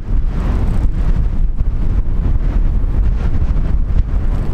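Strong wind buffeting the microphone: a loud, continuous low rumble that rises and falls with the gusts.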